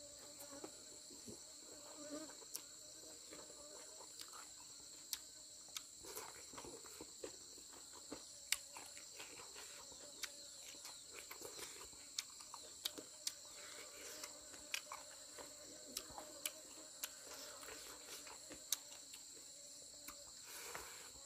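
Steady high-pitched trilling of insects, in two unbroken bands, with a fainter steady hum lower down. Scattered light clicks and taps sound throughout.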